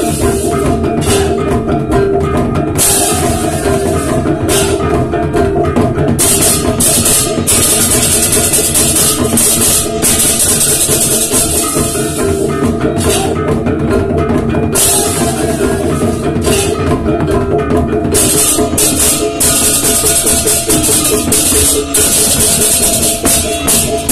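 Balinese baleganjur gamelan playing at full volume: kendang drums beating, pairs of ceng-ceng cymbals crashing, with gongs and small bronze gong-chimes ringing. The cymbal clashing comes in stretches and drops out briefly several times.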